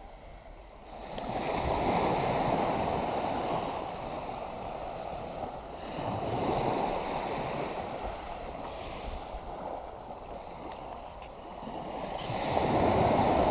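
Sea waves washing in, swelling three times a few seconds apart.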